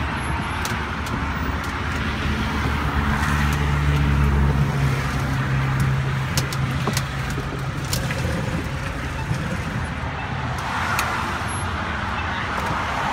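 Road traffic going past: car engines and tyre noise, with one vehicle's low engine drone strongest from about two to eight seconds in. A few sharp clicks are heard as well.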